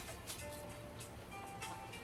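Background music: short held notes at several pitches over a light ticking beat.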